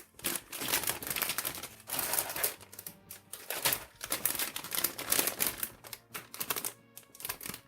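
Plastic model-kit runners and their plastic bags being handled: dense crinkling with many quick irregular clicks and taps.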